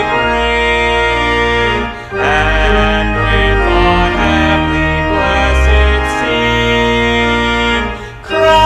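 Church organ playing a hymn in sustained chords, with two brief breaks between phrases.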